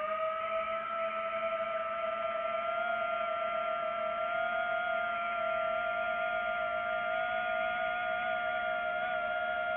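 Multirotor drone's motors and propellers giving a steady whine while it hovers, with a slight dip in pitch at the very start.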